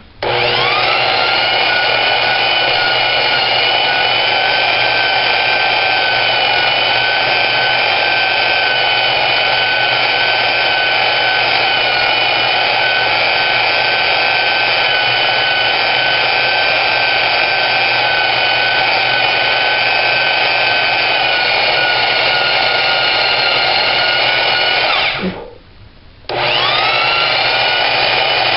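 Portable band saw (Porta-Band) cutting through the steel axle tube of a Dana 44 front axle. The motor's whine rises as it spins up and then holds steady. It stops about 25 seconds in and starts up again a second later.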